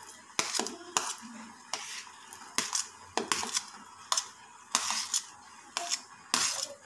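A steel spoon scraping and clinking against a plate and pot while chopped watermelon rind is scooped into the pot, in a series of sharp clicks and short scrapes about once or twice a second.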